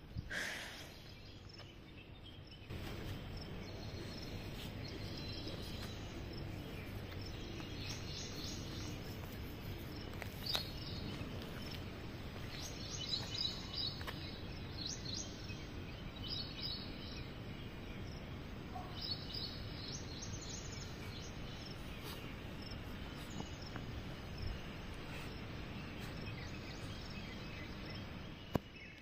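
Steady outdoor background noise, with clusters of short, high chirping calls coming and going through it.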